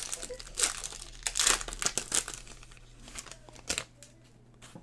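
Silver foil wrapper of a Topps Chrome trading-card pack crinkling and tearing as it is ripped open by hand. The crackle is loudest about a second and a half in and dies down after about three seconds, with one sharp click near the end.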